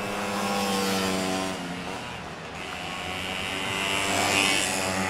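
Vintage largeframe Vespa scooters' two-stroke single-cylinder engines racing past at full throttle. One holds a steady note for about a second and a half and fades, and a second grows louder about three seconds in.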